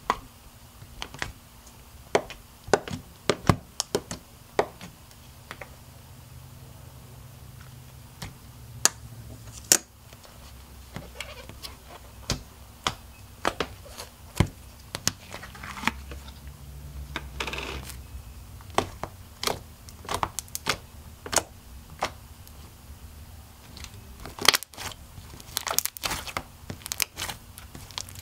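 Milky slime made from glue, lotion and borax activator being scooped, poked and squeezed by hand, giving irregular sticky clicks and pops, some sharp and loud.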